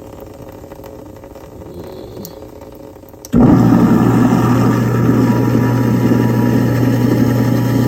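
Kitchen sink garbage disposal switched on about three seconds in, its motor running with a steady loud hum and churning noise, with disposal-cleaner tablets in it.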